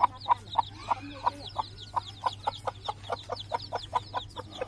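Chickens clucking: short calls repeated evenly, about three to four a second, over a steady low hum.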